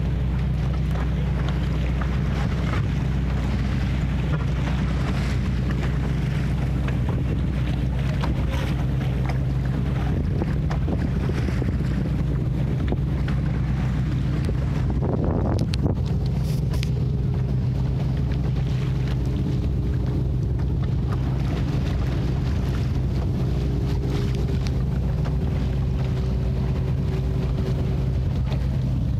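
Wind buffeting the microphone and water washing along the hull of a small sailing dory under way, over a steady low engine hum.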